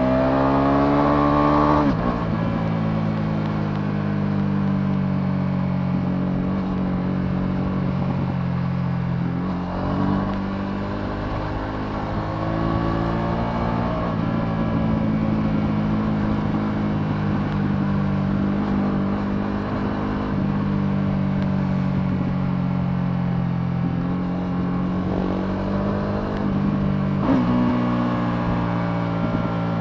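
Ducati Multistrada V2S's 937 cc V-twin engine on the move. It revs up over the first two seconds, then drops suddenly. It runs at a steady pitch, rises and falls again about ten to fourteen seconds in, and drops sharply once more near the end.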